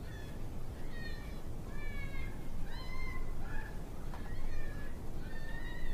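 A string of about eight short, high, whining squeals, each rising then falling in pitch. They come from a predator call sounding distress cries to lure a coyote in.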